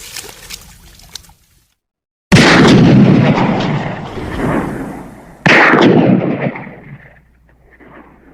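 Two big explosion sound effects about three seconds apart, each starting suddenly and rumbling away over a couple of seconds.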